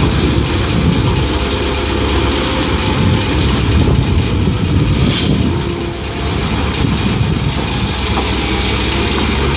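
Komatsu PC130-8 excavator's diesel engine running loud and steady, with a rapid rumbling beat; the loudness dips briefly about six seconds in.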